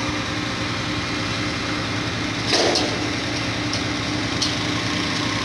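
Concrete pump truck's engine running steadily, with a steady hum from the hydraulics while the boom is raised. A short clatter about two and a half seconds in.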